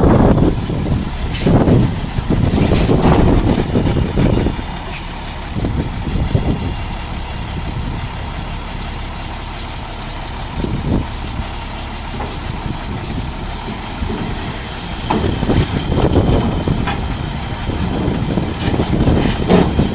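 The 8.7-litre DT530E inline-six diesel of a 1999 International 4900 dump truck running as the truck drives slowly, louder in the first few seconds and again near the end. A few short high hisses in the first five seconds.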